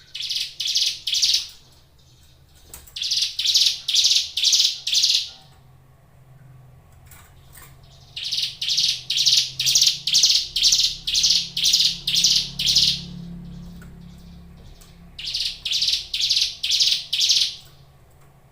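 Ciblek gunung (a mountain prinia) calling in runs of sharp repeated notes, about two a second. There are four runs: a short one at the start, another at about three seconds, a long run of about ten notes from eight seconds, and a last short run near the end.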